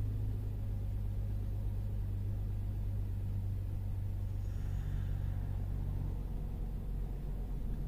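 Ram 1500's 3.6-litre V6 engine idling with a steady low hum, a slightly higher hum joining for a second or so about halfway through.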